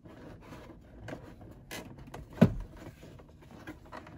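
Rubbing and scraping as a new cardboard glove box is worked into a truck's dashboard opening, a tight fit. There is one sharp knock about halfway through.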